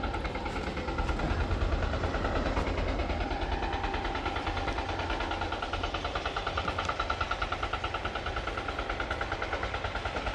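A steady engine-like drone pulsing about five times a second, over a low rumble.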